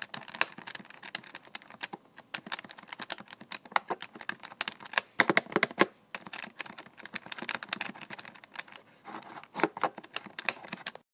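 Rapid, irregular light clicks and taps, with denser clusters about five and a half and nine and a half seconds in.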